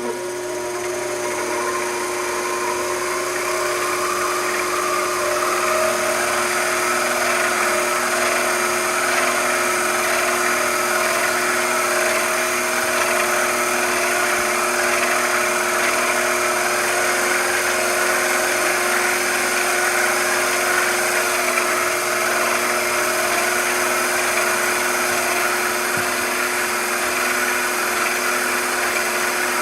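A small machine tool's motor and spindle running steadily with a constant hum. The sound builds up over the first few seconds after a switch click, then holds level.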